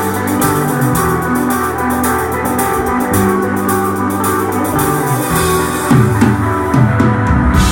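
Live instrumental rock band playing: electric guitar holding sustained notes over bass and drums with steady cymbal strokes, the bass sliding between notes near the end.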